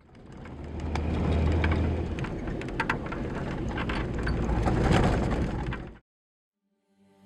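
Mount Bromo's active crater rumbling: a deep steady roar with scattered crackles, fading in at the start and cutting off suddenly about six seconds in.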